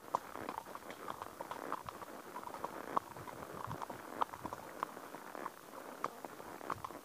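Horse's hooves walking on a dirt forest track strewn with fallen leaves: irregular hoof steps with the crackle of dry leaves underfoot.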